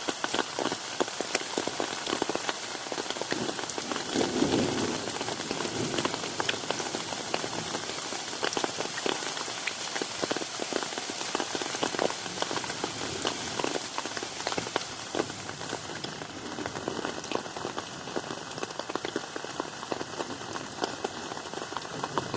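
Steady rain falling on a garden pond: a dense even hiss of rain, dotted with many separate drop splats on the water.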